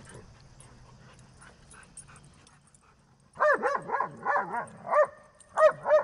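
A dog giving a quick run of about nine short, high-pitched yelps, each rising and falling in pitch, starting about halfway through after a faint start.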